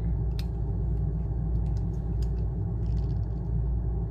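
A steady low rumble of background noise, with a few faint, scattered clicks as a waiter's corkscrew is twisted into a wine bottle's cork.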